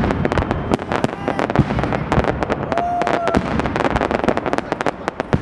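Fireworks display: a rapid, dense run of sharp bangs and crackles from bursting aerial shells, many per second.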